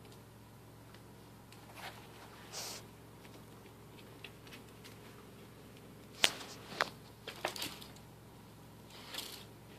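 Scattered light clicks, taps and short rustles from Bengal kittens playing with a small toy and scraps of paper on a hard floor, over a faint steady hum. The sharpest click comes a little past the middle, followed by a quick cluster of smaller ones.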